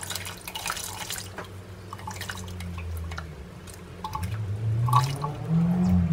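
Canned whole kernel sweet corn and its liquid poured from the can into a pot of coconut milk, splashing and dripping. A low hum that wavers in pitch comes in over the last couple of seconds.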